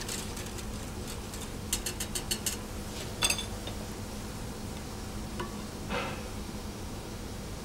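Wire whisk stirring a red-wine sauce in a copper saucepan, with a quick run of metal clicks against the pan about two seconds in and a single clink a little after three seconds.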